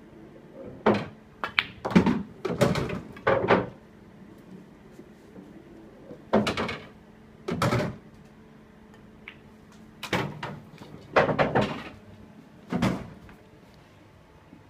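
Pool balls on a Supreme Winner pub pool table: sharp clicks of the cue striking the cue ball and balls colliding, followed by thuds as potted balls drop into the pockets and roll away inside the table. The clicks and thuds come in clusters a second or a few seconds apart as shot follows shot.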